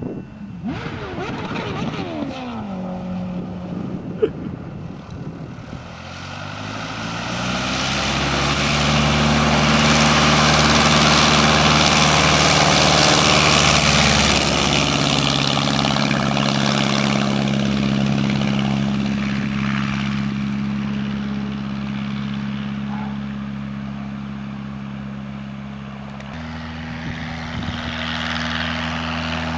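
Continental A-65 air-cooled flat-four engine and propeller of a light homebuilt airplane. The engine runs at low power, its pitch falling over the first few seconds, with a sharp click about four seconds in. It then opens up to full power for the takeoff run, loudest around ten to fifteen seconds in, and fades steadily as the plane climbs away. Near the end the sound jumps abruptly to a steady engine note again.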